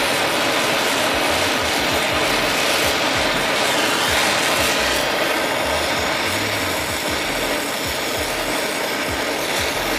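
Oxy-fuel gas torch flame hissing steadily while it heats a steel rivet toward yellow heat for hot riveting.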